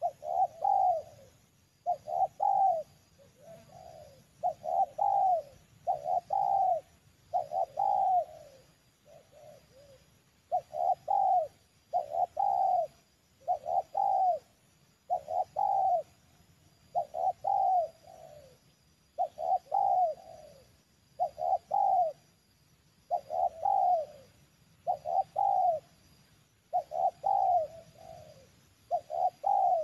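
Spotted dove (tekukur) cooing: a long series of low coos, about one every second, with short pauses between phrases.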